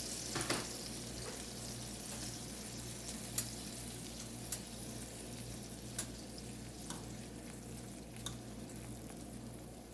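Browned chicken sizzling in a pot, a steady crackle with a few faint clicks.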